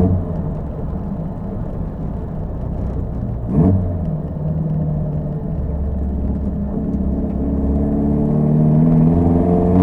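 Pilgrim Sumo Cobra-replica kit car's engine running on the move, with a short, sharp sound about a third of the way in. Over the last few seconds the engine note rises steadily and grows louder as the car accelerates.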